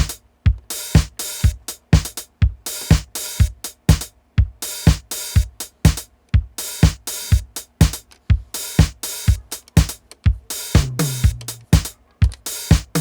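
Roland TR-707 digital drum machine playing a steady programmed beat: bass drum about twice a second with bright hi-hat and snare hits between, and a low pitched drum tone coming in near the end. The machine is working again after repair.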